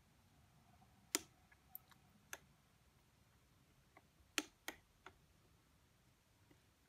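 Metal spoon clinking against a tall drinking glass while stirring whipped coffee into milk: about six sharp ticks spread out over a near-silent background, two of them louder.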